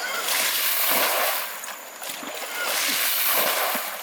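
Shallow river water splashing and sloshing in repeated surges, about one every second or so.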